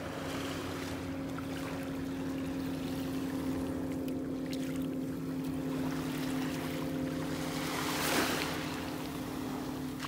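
A steady, even engine drone, with small waves washing at the shoreline. About eight seconds in, a louder rush of surf or wind swells up briefly.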